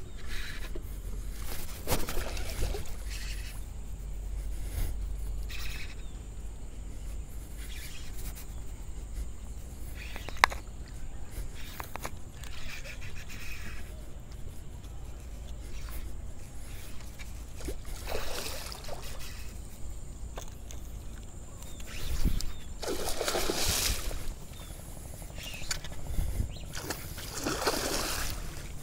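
Water sloshing and splashing at the surface by a small fishing boat, with three bursts of splashing in the second half, the last right beside the boat, over a steady low rumble and a few sharp clicks.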